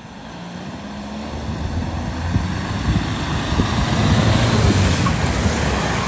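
A vehicle drives through the flooded ford toward the microphone. Its engine hum grows steadily louder along with the rush of water pushed aside by its wheels.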